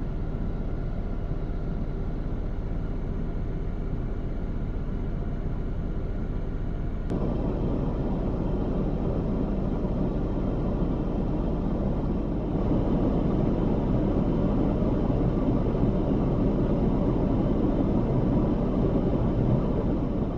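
Off-road vehicle engine running with a steady rumble while driving through sand; the sound changes abruptly about seven seconds in and gets louder again near thirteen seconds.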